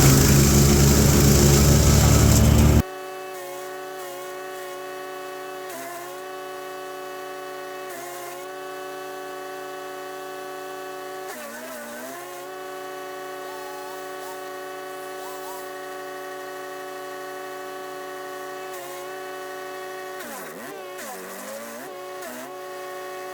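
Chipease D1500E wood chipper's 420cc engine running loudly, cutting off abruptly about three seconds in. A quieter steady drone of several tones follows, briefly dipping in pitch twice.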